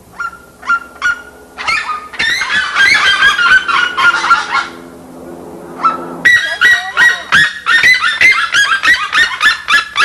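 Red-legged seriemas calling: loud series of rapid yelping notes in two long bouts with a short lull about halfway. They are answering a human imitation of their call.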